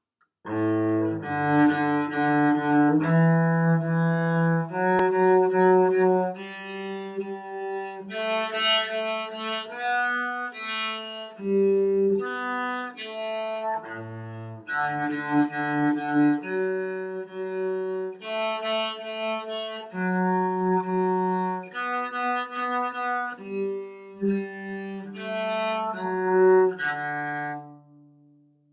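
Solo cello, bowed, playing a melody of held notes that change pitch about every second, in the instrument's low and middle range. It ends on a low held note that fades away.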